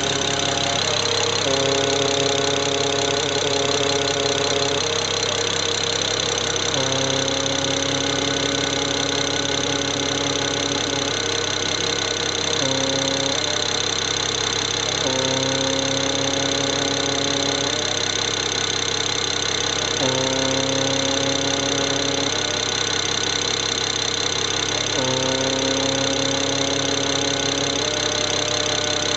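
BMW N54 twin-turbo straight-six idling warm, with a droning tone that comes and goes in spells of a few seconds. The noise comes from a failing boost-control (wastegate) vacuum solenoid.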